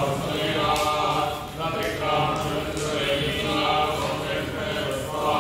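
Sanskrit Vedic mantras chanted in a steady recitation, in phrases broken by short pauses.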